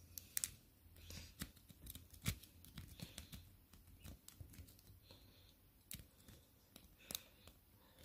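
Faint, irregular metallic clicks and scrapes from a Sparrows worm rake being worked in and out of the tight pin-tumbler keyway of a Bell bicycle cable lock, against light tension from a twisted L tension wrench.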